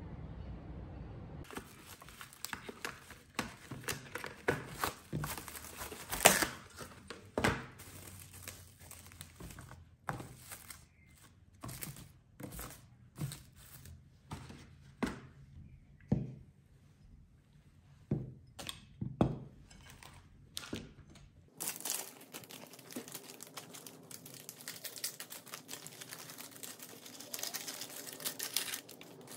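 Plastic cling film being pulled off its roll and stretched and smoothed over a cutting board by hand: a long run of irregular crinkles, crackles and sharp rustles. It gives way to a steady faint hiss for the last several seconds.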